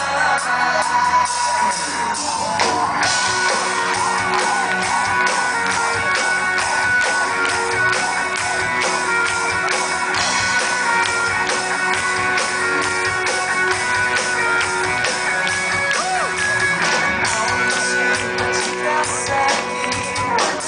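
Live band music played loud through a PA: drums keeping a steady beat under electric and acoustic guitars and keyboard.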